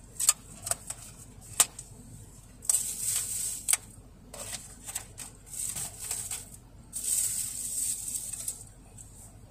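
Clear plastic food pack being handled: a few sharp clicks in the first two seconds as the lid is pressed shut, then two longer spells of plastic crinkling and rustling.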